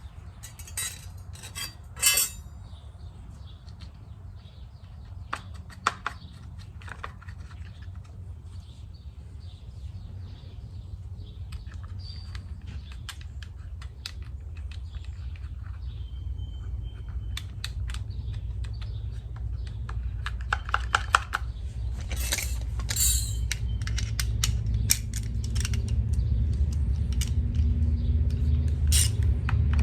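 Hand tools and small metal engine parts clinking and tapping in scattered clicks, with louder clusters about two seconds in and again about two-thirds of the way through. Underneath, a low hum grows steadily louder.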